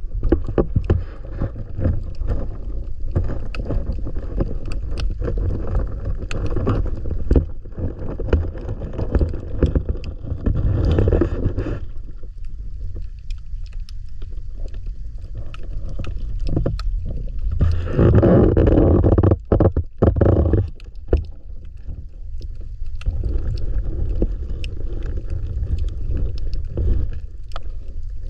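Underwater sound from a submerged camera: a steady low rumble of water against the housing, swelling louder in stretches, with many scattered sharp clicks.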